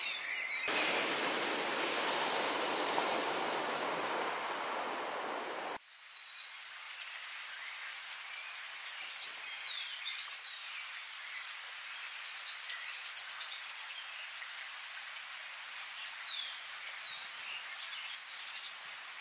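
Forest ambience: a steady rushing noise, like rain or falling water, runs for about five seconds and cuts off abruptly. After it comes a quieter forest background with scattered short falling bird whistles and a brief fast trill about halfway through.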